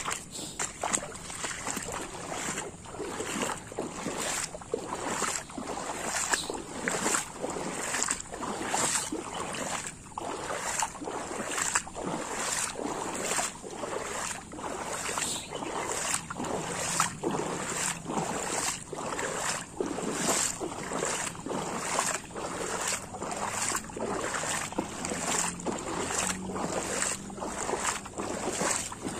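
Footsteps wading through shallow floodwater: a steady rhythm of splashes, roughly one and a half steps a second.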